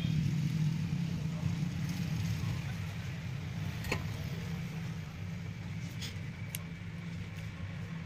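Steady low hum, with a few faint ticks about four and six seconds in.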